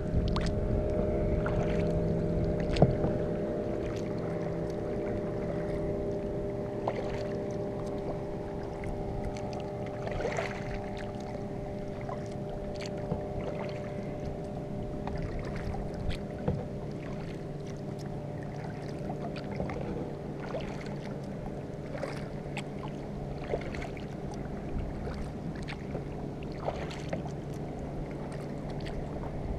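Kayak paddle strokes: the paddle blades dip and splash in calm water, with drips and occasional knocks, over a steady low hum.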